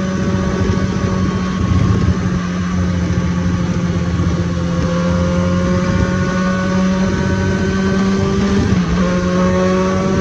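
Motorcycle engine running at road speed with wind rush, its pitch rising slowly, then dipping briefly about nine seconds in and climbing again.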